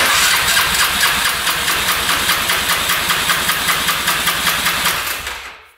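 2005 Polaris Sportsman 500's single-cylinder engine cranked over with the spark plug out and the throttle held open, for a compression test: a fast, even beat that stops about five and a half seconds in.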